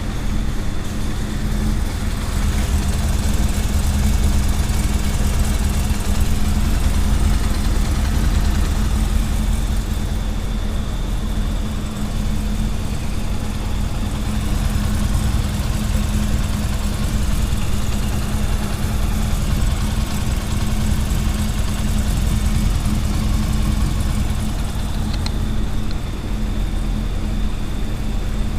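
A 2000 Honda CB400SF's inline-four engine running at a steady idle.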